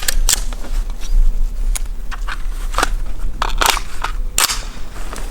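Irregular clicks and crunches of handling and movement, the loudest about three and a half and four and a half seconds in, over a steady low wind rumble on the microphone.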